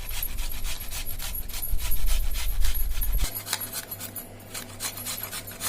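A piece of fresh ginger being grated by hand on a kitchen grater: quick, repeated scraping strokes.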